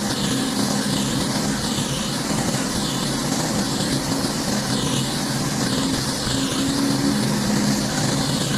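Pressure washer running steadily, its engine humming under the hiss of the high-pressure water spray hitting the surface. The hiss swells and fades about once a second as the spray is swept back and forth.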